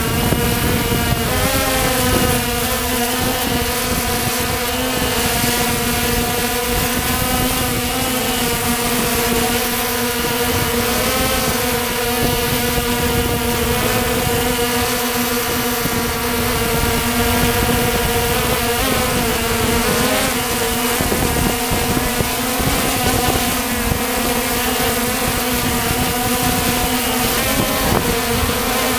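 Walkera TALI H500 hexacopter's brushless motors and propellers whining steadily in low flight, heard close from the camera on the drone itself. The pitch wobbles briefly a few times.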